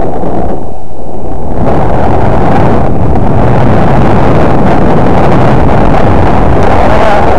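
Wind buffeting the microphone of a camera carried while snowboarding: a loud, steady rushing noise that grows fuller about two seconds in.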